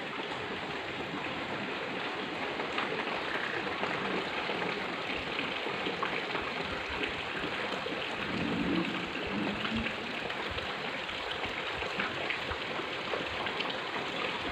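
Steady hiss with light crackling: solder and flux sizzling on the hot pencil-lead tip of a homemade USB-powered soldering iron, a sign that the tip is hot enough to melt solder.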